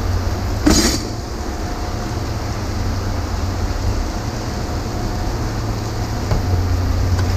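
Steady low mechanical rumble, with one short, sharp clatter about a second in.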